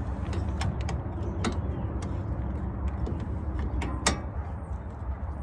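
Scattered, irregular metallic clicks and clinks of a hand wrench and bit working on CV axle flange bolts as they are loosened one at a time, over a steady low hum.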